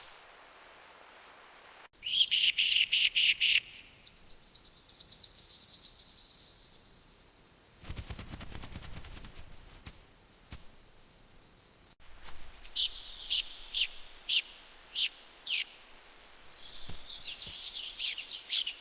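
Wild birds calling: a fast series of chirps, then a steady high-pitched whine that runs for about ten seconds and stops abruptly, then single sharp chirps a second or so apart and a closing burst of chatter.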